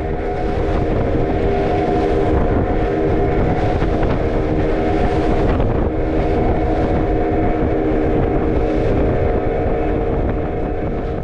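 Boat engine running steadily while under way, with rushing wind and water noise and a few brief swells of spray.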